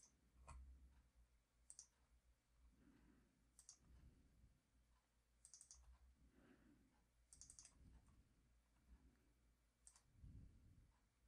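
Faint computer mouse clicks over near silence: about half a dozen single and double clicks, one every second or two, with a few soft low thumps.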